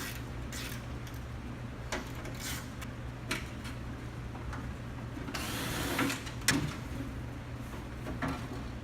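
Scattered metal clicks and knocks, with a short scraping rush about five seconds in and a sharp knock just after, as the window regulator of a 1971 Mustang door is unbolted and worked out of the steel door shell. A steady low hum runs underneath.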